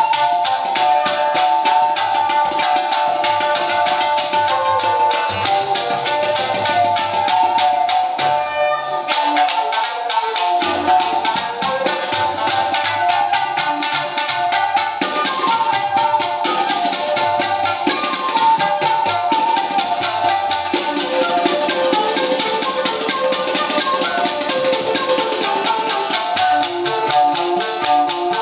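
Tsugaru-shamisen, shakuhachi and tabla playing together: fast plucked shamisen notes and tabla strokes under a held shakuhachi melody.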